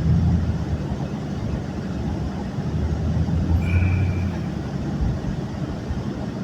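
A vehicle engine running steadily, with a brief high-pitched tone about three and a half seconds in.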